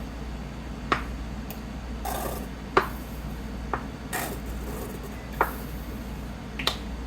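A sauce bottle being shaken and knocked to get the sauce out: a handful of sharp, irregular knocks with brief rattling and squirting noises between them.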